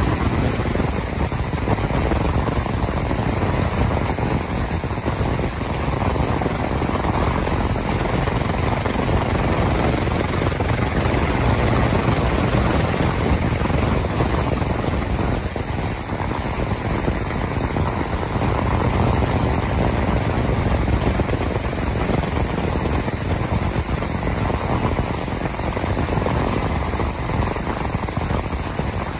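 Morantz M-115 ultrasonic cleaning tank running: a steady, even noise from the water as the ultrasound cavitates it, with dirt and corrosion being lifted off a submerged part.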